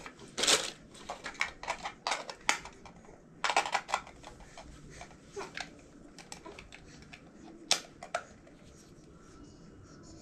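Irregular sharp clicks and light knocks, scattered unevenly over several seconds, with the loudest near the start and a pair near the end.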